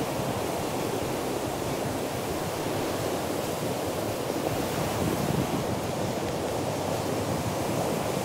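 Rough sea surf breaking on the beach in a steady wash, with wind buffeting the microphone.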